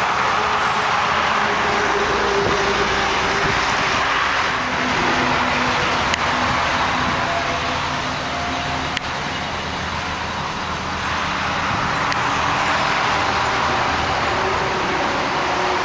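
Highway traffic running steadily in the background, with vehicles passing and wind on the microphone; a few faint clicks.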